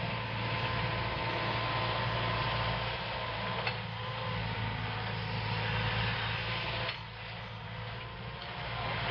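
Hitachi 130 excavator's diesel engine running steadily with a low hum, easing off slightly about seven seconds in.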